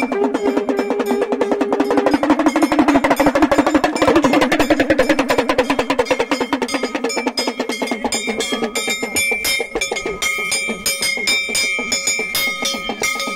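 Rapid drumming on hand drums, a dense roll of many strokes a second. About two-thirds of the way through, steady high ringing tones join in.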